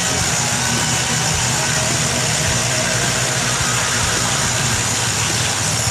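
Cordless Milwaukee M18 FUEL 2712-20 SDS Plus rotary hammer running steadily under load, its long bit boring deep into fully cured concrete.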